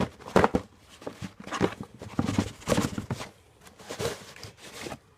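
A box of 3-inch firework shells being handled and opened: a run of irregular knocks and thuds, some deep and heavy, spaced a fraction of a second to a second apart.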